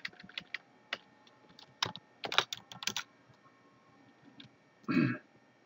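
Computer keyboard typing: a run of quick key clicks through the first three seconds, thinning out after that. A short vocal sound about five seconds in.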